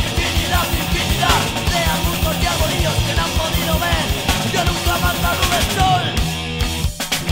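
Fast hardcore punk recording: a rapid drum beat under distorted electric guitars and shouted vocals. About six seconds in, the drums drop out under a held chord, then there is a brief gap before the band comes back in.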